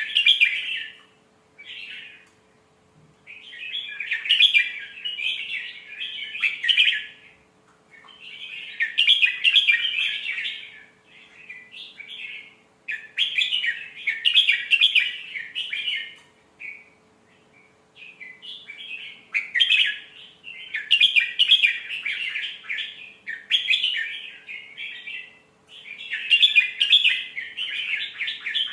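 Red-whiskered bulbul singing: bursts of quick, warbling phrases, each lasting one to three seconds with brief pauses between them. A faint steady hum lies underneath.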